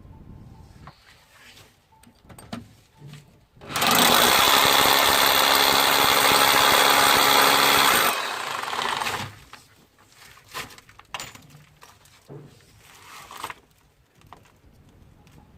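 Electric power drill running at full speed for about four seconds, then slowing and stopping, with scattered light knocks before and after.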